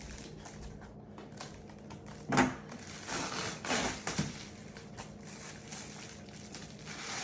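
Shipping packaging being handled and opened by hand: a sharp knock about two and a half seconds in, then rustling and crinkling of the packaging.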